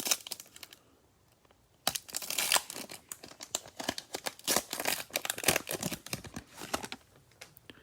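Cellophane wrapper of a baseball card cello pack being torn open and crinkled: a dense crackling that starts about two seconds in and lasts about four seconds.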